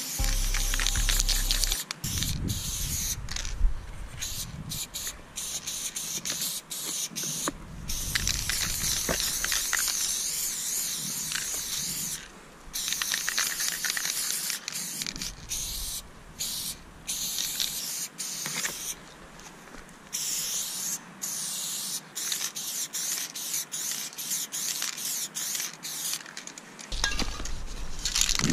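Aerosol spray-paint can hissing in repeated bursts of varying length with short pauses between, as a colour fill is sprayed onto a wall.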